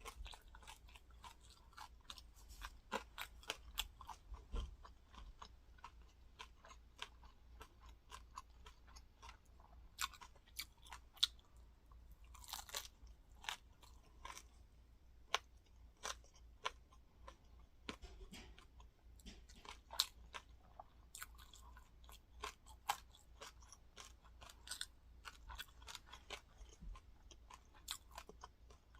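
Close-up chewing of crispy fried rice crust topped with pork floss: many irregular, sharp crunches as the brittle rice is bitten and chewed.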